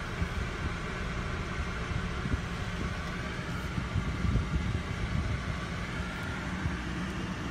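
Steady low hum and hiss inside a stopped car's cabin, with irregular low bumps as the phone is moved around.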